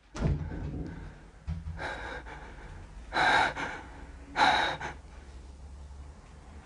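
A person breathing hard in sharp gasps: three loud breaths a little over a second apart, the last two loudest, with a couple of low bumps before them.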